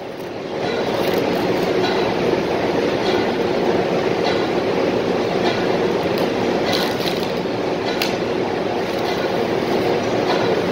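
Steady, loud industrial background noise of a factory floor: machinery and ventilation running, with a few faint short clicks.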